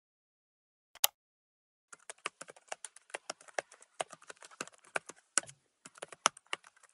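Typing on a computer keyboard: a single click about a second in, then a fast, uneven run of key clicks as a search phrase is typed.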